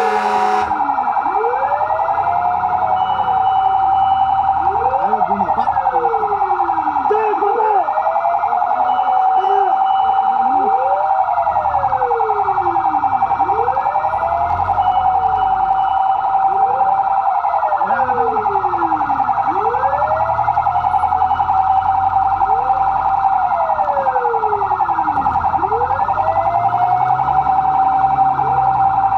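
Fire truck siren wailing, its pitch sweeping up and back down about every two seconds over a steady high tone, without a break.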